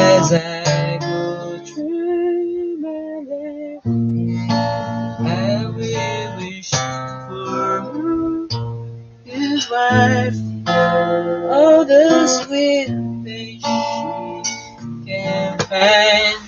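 Acoustic guitar strummed and picked in a slow ballad, with a man singing along.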